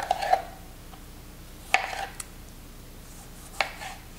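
Chef's knife halving cherry tomatoes on a plastic cutting board: a few sharp knocks of the blade on the board, spaced a second or two apart.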